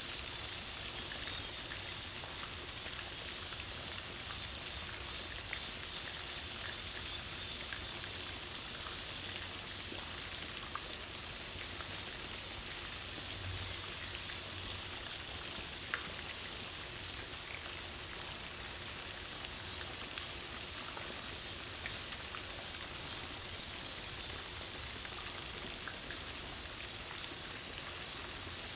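Steady, high-pitched chorus of summer insects with faint scattered ticks. A higher band of the chorus comes in about eleven seconds in and drops out near the end.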